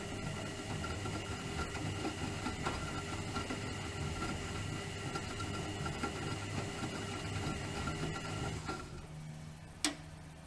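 Bauknecht WAK 5750 G washing machine's brushed motor, on a fresh pair of carbon brushes, turning the drum with a steady whine that stops about nine seconds in. A single sharp click follows about a second later, with a low hum going on underneath.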